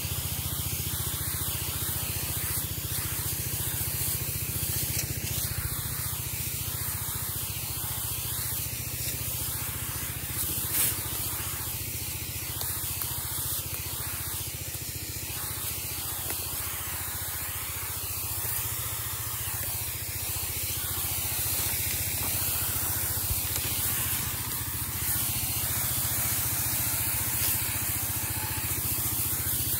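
High-pressure herbicide spray from a hose nozzle hissing steadily, with a low steady hum underneath.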